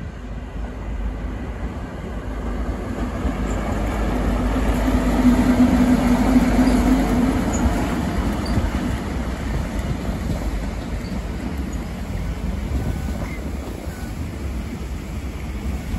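GWR Class 43 HST power car passing close by, its MTU diesel engine droning loudest about five to seven seconds in. After it come the steady rumble and rattle of the Mark 3 coaches' wheels on the rails.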